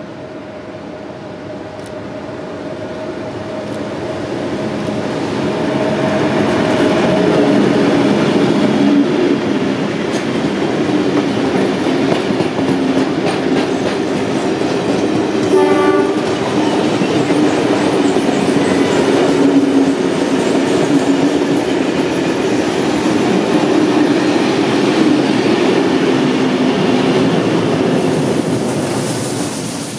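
NSW 36 class steam locomotive 3642 and its 1930s heritage carriages running past close by: a dense rumble and clatter of wheels on the rails. It swells over the first several seconds, stays loud, and drops away near the end as the locomotive goes by. A brief higher-pitched sound cuts through about halfway.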